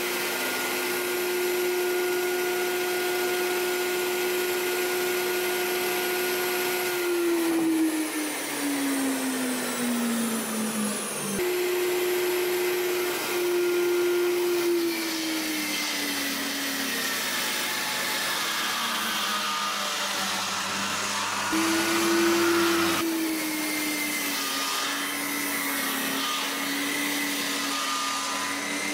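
Electric circular saw running steadily, cutting kerfs across a large timber windmill windshaft to rough it round. Its motor whine drops in pitch about three times as the blade bites into the wood, and picks back up between cuts.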